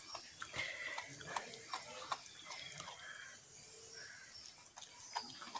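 Dalmatian mother dog licking and mouthing a newborn puppy free of its birth sac: wet licking and smacking clicks, with a few short faint squeaks.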